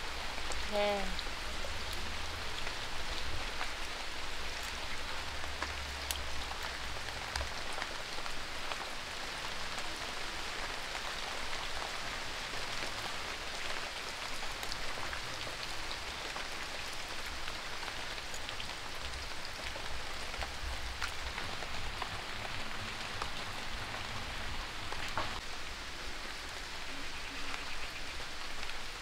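Steady rain falling as it eases off, an even patter with a few sharp ticks scattered through it.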